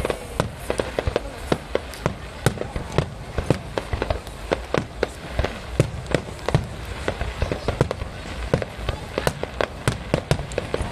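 Fireworks display, aerial shells bursting in a rapid, irregular run of sharp bangs and crackles, several a second.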